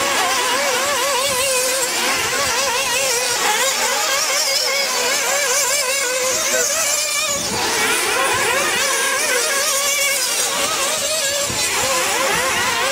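Several 1/8-scale nitro RC buggy engines running at high revs together. Their overlapping high-pitched notes rise and fall quickly and constantly as the drivers work the throttles through the corners.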